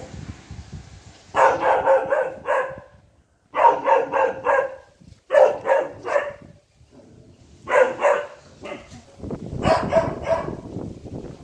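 Saint Bernard puppy barking at a monkey, in five bursts of three or four quick barks each, with pauses of about a second between the bursts.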